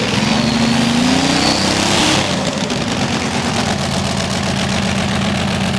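One of the Money Pit 2's twin Allison V12 aircraft engines running on its own shortly after starting, with the second engine not yet fired. It is revved, rising in pitch for about two seconds, then drops back to a steady idle.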